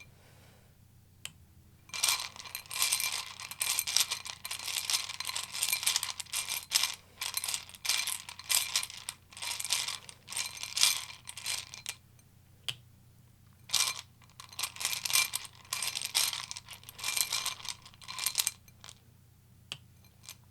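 Tarot deck being shuffled by hand: runs of rapid card-on-card slapping and flicking, each lasting a second or two, broken by short pauses.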